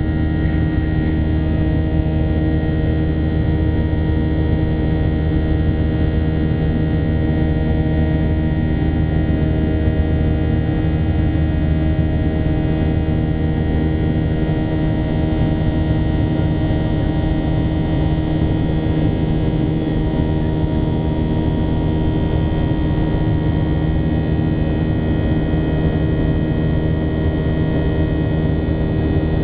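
Boeing 737's CFM56 jet engines and airflow heard inside the cabin during the climb after takeoff: a loud, steady drone with several steady humming tones and no change in level.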